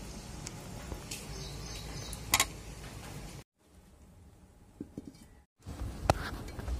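Soft handling noise of fingers peeling the skin off a boiled potato, with scattered clicks and one sharp click about two and a half seconds in. After a sudden drop to a quiet stretch, knocks and clicks come as a metal kadai is set over a wood fire in a clay chulha.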